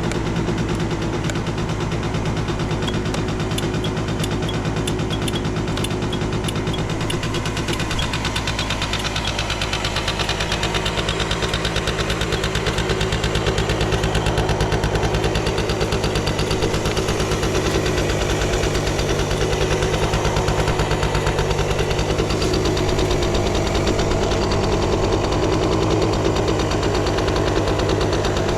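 Suzuki Hi scooter's small two-stroke engine idling steadily on a cold-start check, getting a little louder about halfway through; it runs with no abnormal noise.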